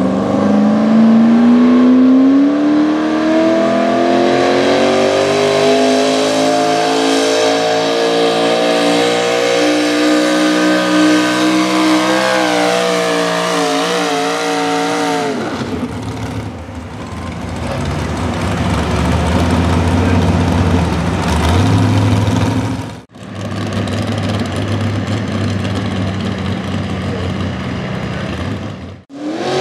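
Modified small-block V8 of a 4x4 pulling truck at full throttle hauling a pulling sled. Its note climbs steadily for about twelve seconds, wavers, then drops away about halfway through. A lower, rougher engine rumble follows, broken off abruptly twice.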